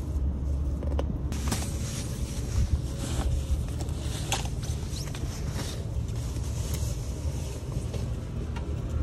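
Scattered clicks and knocks of wet things being hung up to dry inside a small van, over a steady low rumble.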